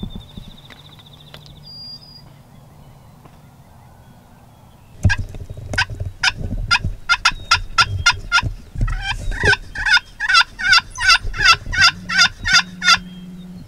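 Wild turkey calling close by: a long run of loud, sharp yelps, about three to four a second, starting about five seconds in and quickening toward the end.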